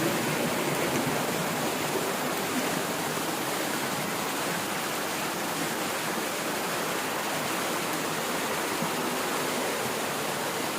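Steady rush of water from a waterfall and its stream, an even hiss with no breaks.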